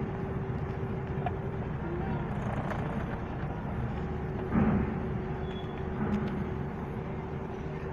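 Vehicle engines running with a steady low rumble and a steady hum inside a ferry's car deck, with one brief louder thump about halfway through.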